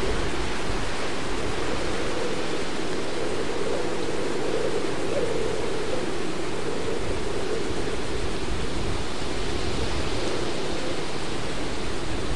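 Hurricane Dorian's storm: wind and heavy rain in a steady, dense rushing noise with an uneven low rumble underneath.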